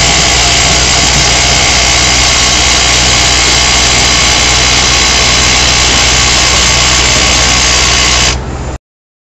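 Excavator-mounted hydraulic rock drill hammering a hole into granite: a loud, steady percussive rattle over the excavator's engine. It cuts off abruptly near the end.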